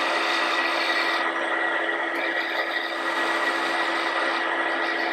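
Wood lathe running with a strip of mesh abrasive held against the spinning wooden bobble. A steady sanding hiss sits over the machine's steady hum and high whine.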